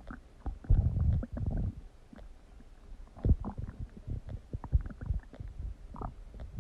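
Human stomach gurgling and rumbling. A long low rumble starts about a second in, followed by a string of short gurgles and pops.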